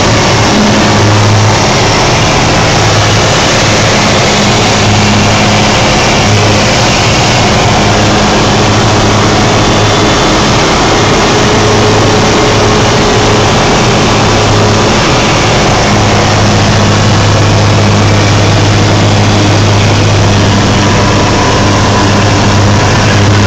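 Light aircraft's piston engine and propeller running steadily at high power during take-off, a loud, unchanging drone with a strong low hum.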